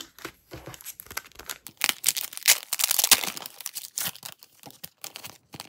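Clear plastic wrapping on a music album being torn open and crinkled by hand. The crackling is densest and loudest about two to three seconds in, then thins to light scattered crinkles.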